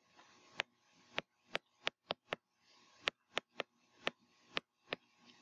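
Stylus tapping on a writing surface during handwriting: faint, sharp ticks, about two or three a second and irregular, one at each pen stroke.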